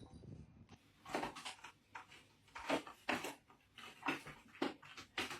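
A door rattling with a quick run of about a dozen short knocks, starting about a second in.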